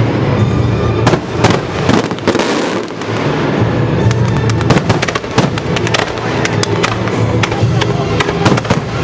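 Aerial fireworks going off in quick succession, a dense run of sharp bangs and crackles, with music playing underneath as part of a pyromusical display.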